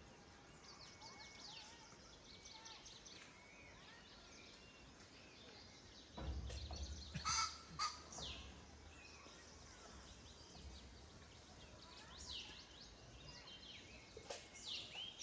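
Small birds chirping in short, high, falling calls, faint and scattered. A low rumble on the microphone comes in about six seconds in, with two louder sharp sounds about a second later.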